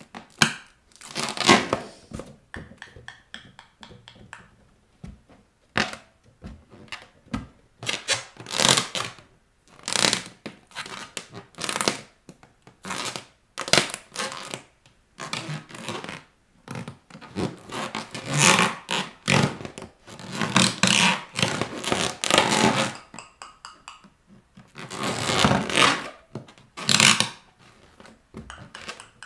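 Rubber balloons squeezed and rubbed under bare feet, giving a run of scraping, squeaky rubber noises broken by several sharp pops.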